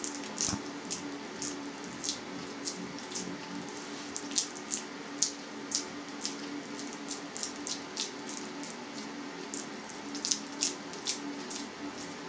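Wet hands pressing and working sticky minced chicken around a wide metal skewer to shape a lyulya kebab: irregular short smacks, a few each second, over a low steady hum.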